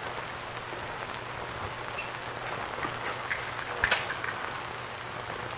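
Steady hiss and crackle of an old 1950s film soundtrack over a low steady hum, with a few faint clicks a little past the middle.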